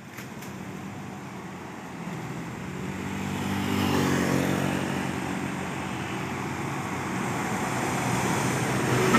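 Diesel engines of a convoy of sugarcane-laden light trucks growing louder as the trucks come down the road toward the listener. A motorcycle passes close about four seconds in, its pitch dropping as it goes by.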